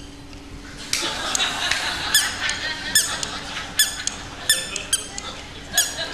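A series of short, high-pitched mouse-like squeaks, roughly one every three-quarters of a second, made as a comedy 'mouse saying good evening' effect. Audience laughter rises underneath from about a second in.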